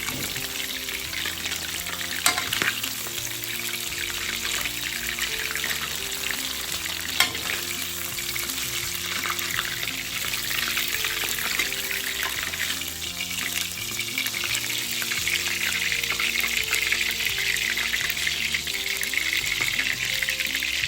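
Hot oil sizzling steadily in a wok, growing louder in the last third, with two sharp clicks of a utensil against the wok about two and seven seconds in. Soft background music underneath.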